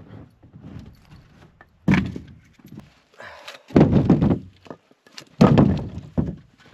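Firewood logs tossed one at a time into a plastic sled, landing with three heavy thunks about a second and a half apart.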